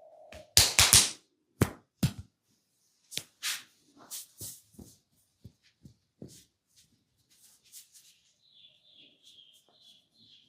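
Bare-hand slaps and strikes of a head massage: a fast cluster of three loud slaps about half a second in, then a string of lighter, irregularly spaced slaps and taps that fade out over the next several seconds.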